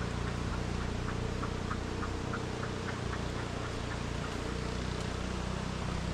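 Steady rushing of a river running high after heavy rain, with a low steady hum underneath. A run of faint, quick chirps comes through from about one to three seconds in.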